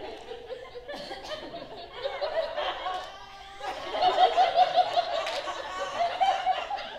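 Laughter: choppy, high-pitched laughing led by one strong voice over a few others, louder from about four seconds in.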